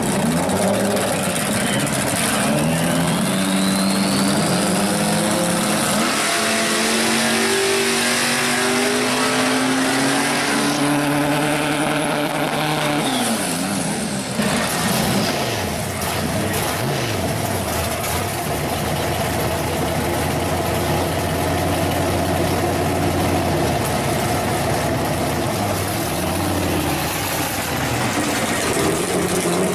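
1965 Pontiac GTO drag car's engine revving hard through a burnout, its pitch climbing in steps over the spinning tyres. About 14 seconds in it drops back to a steady low-speed run as the car rolls up to the start line.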